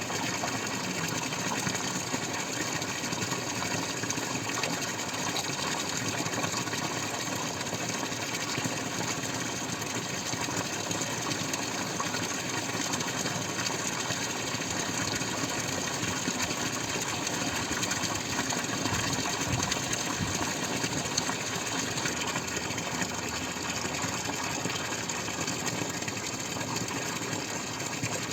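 Water falling and splashing steadily in a dense, rapid patter of drops.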